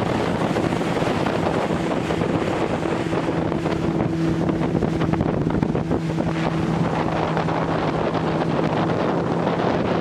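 Motorboat under way at steady speed: a constant engine hum under loud wind buffeting the microphone and water rushing past the hull.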